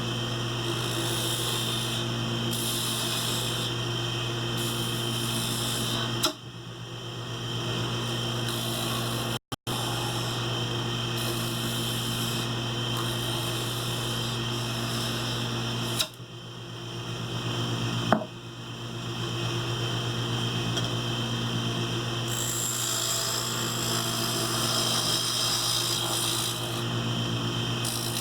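Wood lathe running steadily with a turning tool working a spinning Alaska yellow cedar spindle: a constant motor hum under a hiss from the cut. The sound breaks off sharply twice, about six and sixteen seconds in, and builds back up over a couple of seconds each time.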